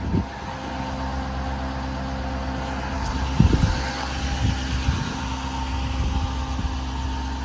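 Chevrolet C5500's Duramax 6.6-litre V8 turbodiesel running at a steady speed, with a couple of low thumps near the start and about halfway through.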